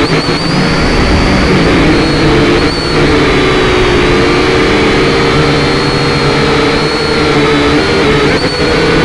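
Small RC quadcopter's motors and propellers whirring loudly and steadily, heard from its own onboard camera, the pitch wavering slightly as it manoeuvres.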